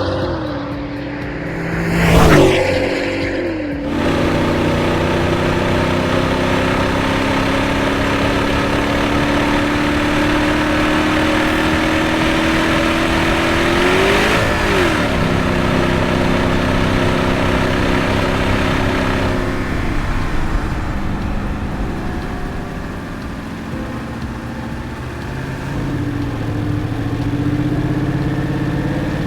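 Porsche Cayenne 4.8 V8 engine while driving. A quick pass-by sweep comes about two seconds in, then a steady engine note whose pitch climbs slowly, rises and falls briefly near the middle, drops back in the last third and rises again near the end.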